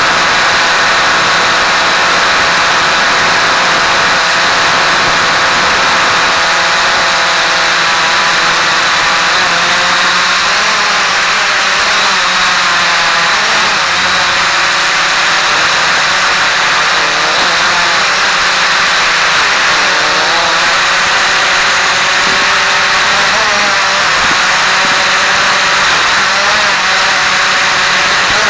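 Quadcopter's electric motors and propellers whining steadily over a constant hiss, the pitch of the whine wavering up and down as the motor speeds change.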